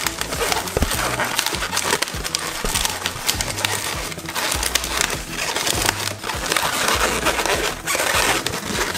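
Latex twisting balloons squeaking and rubbing against each other and against the hands as they are bent, twisted and tied together, with many quick squeaks and creaks in a dense run.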